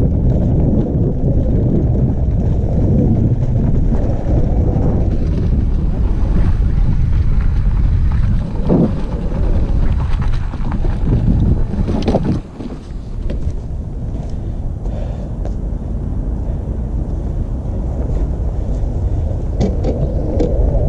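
Wind buffeting the camera microphone, a steady low rumbling rush, with a couple of brief knocks about nine and twelve seconds in.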